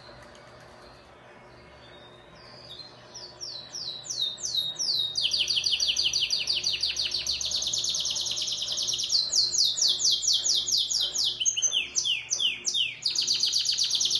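Domestic canary singing: after a couple of faint seconds the song starts with a few falling notes, then runs into long, fast trills of high, rapidly repeated descending notes, broken near the end by a few slower, wider falling notes before the trill resumes.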